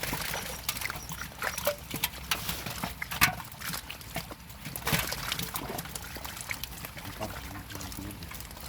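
Irregular splashing and dripping of pond water, with scattered sharp knocks.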